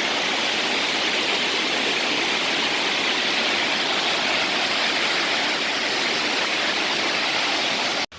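Waterfall water rushing and splashing in a steady, loud hiss, which cuts off abruptly near the end.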